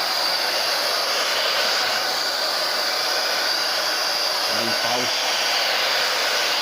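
TAIFF 2100 W hair dryer running steadily: a rush of air with a steady high whine. Its motor bearings are freshly cleaned and greased, and it runs without screeching.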